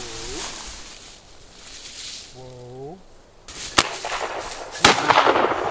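Shotgun fired twice, about a second apart, at a flushing pheasant; the second shot has a long echoing tail.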